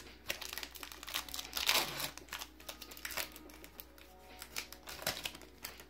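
Foil booster-pack wrapper crinkling and trading cards being handled: irregular crackles throughout, the loudest about two seconds in.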